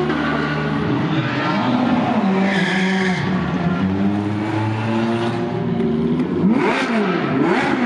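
Ferrari 458 Italia GT3 race cars' V8 engines at low pit-lane speed: a steady low note at first, then the revs rising and falling, with several quick sharp throttle blips near the end.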